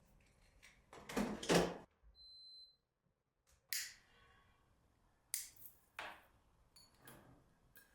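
Quiet household handling sounds: a few separate knocks and rustles, the loudest about a second in, and a short high beep about two seconds in.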